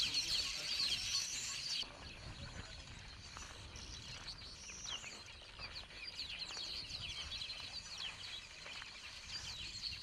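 Many small birds chirping and chattering at once in a dense, overlapping chorus. It is louder for the first two seconds, then drops suddenly to a quieter chorus.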